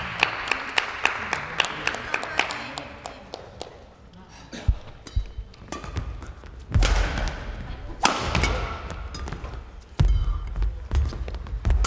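Badminton rally: sharp racket strikes on a shuttlecock roughly every one and a half seconds from about halfway in, with thuds of footfalls and squeaks of shoes on the court floor between them. Quicker light taps come in the first few seconds.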